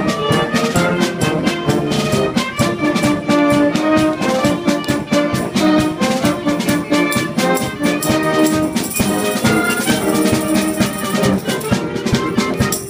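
Brass band playing a tune, with trumpets and trombones over a steady beat.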